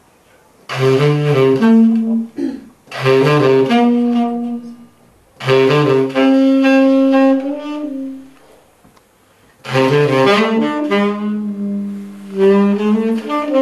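Saxophone playing a slow melody in about five phrases of long held notes, with short pauses between the phrases.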